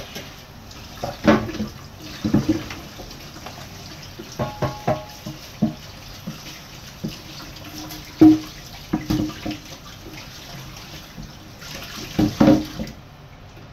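Kitchen tap running steadily into a stainless steel sink while a wooden cutting board is rinsed under it, with irregular knocks and clatters as the board is turned and bumped against the sink.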